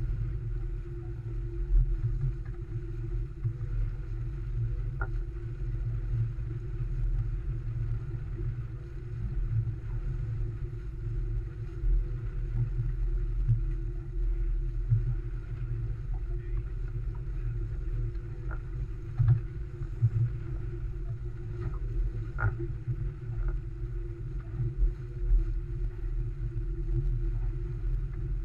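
Wind and water rushing past an Olson 25 sailboat sailing heeled through choppy water, a steady low rumble with scattered short knocks and splashes.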